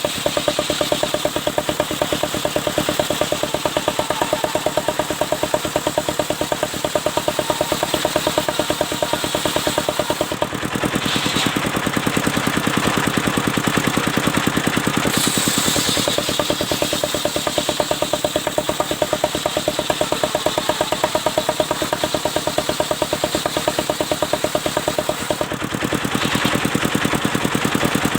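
Engine of a portable circular sawmill running steadily with a fast, even beat while the saw works albasia wood, the high hiss changing briefly a few times.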